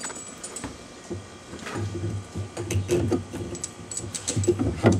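A bolt, washer and nut being fitted by hand through a wooden board against a plywood boat transom: a run of irregular small clicks and rattling knocks that starts about two seconds in.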